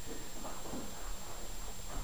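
Quiet room tone in an empty room, with a faint steady high-pitched whine throughout.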